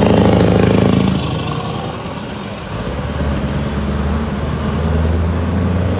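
Scania semi-truck's diesel engine running with a deep drone as it hauls a container trailer past. It is loudest in the first second, dips about a second in, and builds again.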